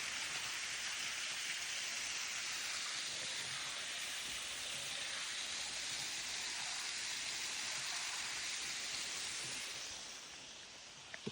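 Steady rush of falling water, easing somewhat about ten seconds in, with a faint click near the end.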